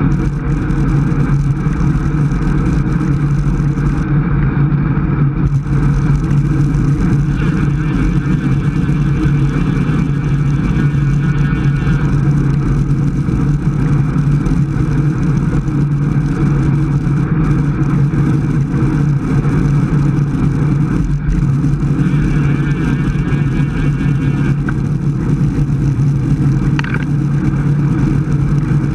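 Wind rushing over the microphone of a camera mounted on a road bike moving at speed, a steady low rumble with tyre noise from the road.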